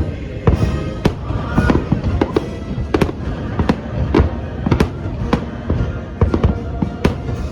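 Fireworks bursting in quick succession, sharp bangs about twice a second, over the fireworks show's music soundtrack.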